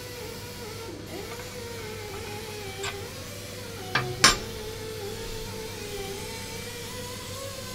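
A few sharp metal clinks as a steel spacer ring is worked off a differential shaft and tools are handled: a light one about three seconds in, then two louder ones about a second later, the last the loudest. A steady workshop hum runs underneath.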